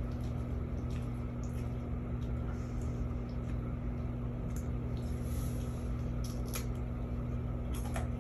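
A steady low hum, as from a running room appliance, with faint rustles and a few light clicks of hands handling a small item and a paper napkin.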